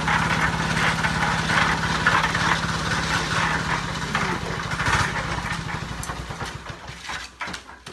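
Small engine of a portable concrete mixer running steadily, dying away near the end.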